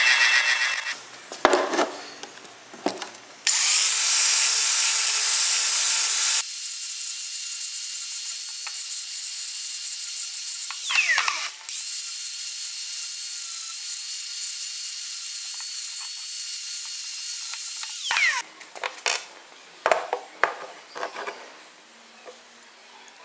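Drill press boring through a steel square tube for about a second, followed by a few knocks. Then an electric angle grinder grinds the steel tube, loud at first, then runs on with a steady whine for about twelve seconds before winding down with a falling pitch. Light clinks of steel parts being handled come near the end.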